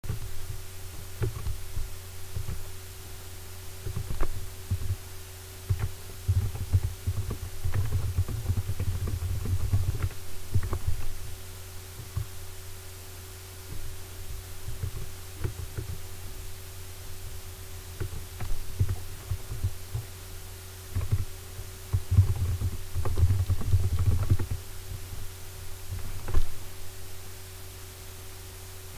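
Low steady hum with a faint higher tone, broken by irregular muffled thumps and clicks that come in clusters.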